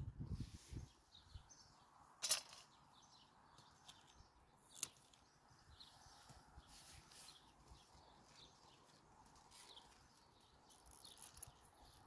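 Near-silent garden ambience with faint, scattered bird chirps. Two brief soft knocks are heard, about two seconds in and again near five seconds.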